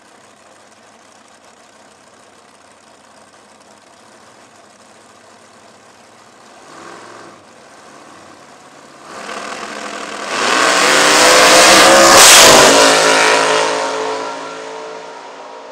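Drag racing cars idling faintly at the starting line, then launching at full throttle about nine seconds in. The engine noise swells to a loud peak as they run down the track past the listener, its pitch dropping as they go by, then fades away.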